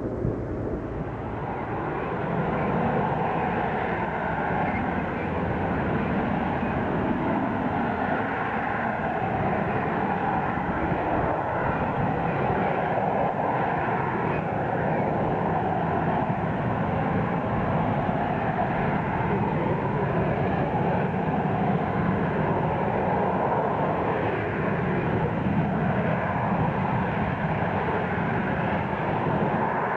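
Harrier jump jet's Rolls-Royce Pegasus turbofan, a steady jet roar with a faint whine on top, as the aircraft flies slowly on engine thrust with its gear down.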